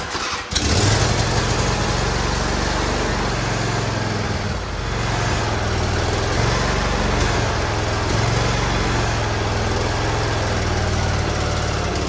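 John Deere LA135 lawn tractor engine starting about half a second in and then running steadily, with a brief dip about four and a half seconds in. It is starting on a newly fitted starter solenoid, with fuel primed into the carburettor and the choke on.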